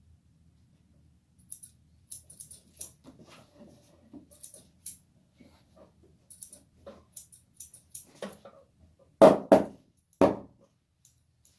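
Hands working over hair and scalp in a barber's head massage: a string of soft rustles and light taps, then near the end three loud smacks, two close together and one more.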